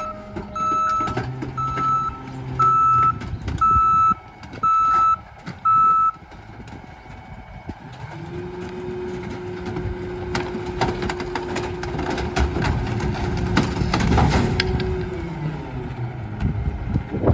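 Rear-loader garbage truck reversing with its backup alarm beeping about once a second, stopping about six seconds in. The truck's engine then runs a steady, gradually louder drone with scattered clanks and clatter, easing off near the end.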